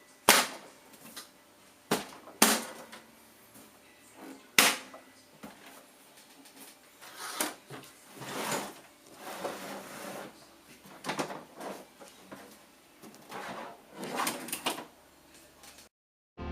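Sharp clicks of tool-less parts being snapped into a computer case, four loud ones in the first five seconds, then softer scraping and rattling as parts are handled in the case. It cuts off to silence near the end.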